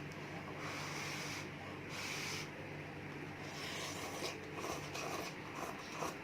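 Mouth noises of someone eating hot, very spicy instant noodle soup: several breathy draws of air, with a few light clicks in the last two seconds.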